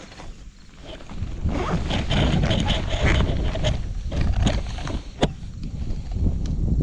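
Wind buffeting the microphone as a steady low rumble, with scattered clicks, knocks and scrapes from handling in a boat.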